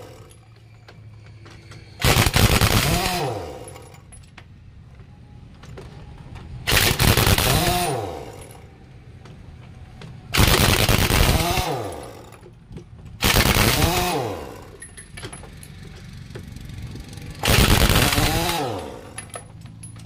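Trolley-mounted pneumatic impact wrench hammering on a truck's wheel nuts in five separate bursts, one every three to four seconds. Each burst starts sharply and fades as the tool winds down.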